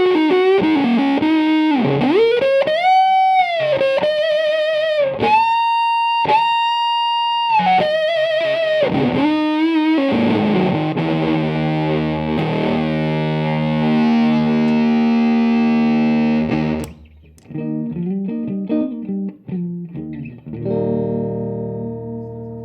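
Electric guitar played through a handmade silicon fuzz pedal: single-note lead lines with bends and vibrato, then sustained fuzzed notes ringing together that cut off suddenly about 17 seconds in, followed by a few quieter picked notes and a final chord left to ring.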